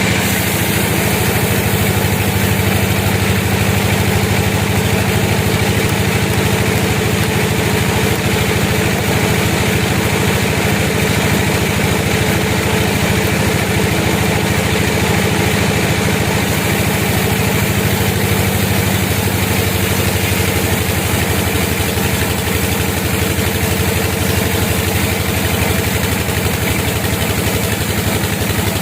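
Sawmill machinery running steadily with an engine-like drone and hum; the upper hiss lessens slightly about two-thirds of the way through.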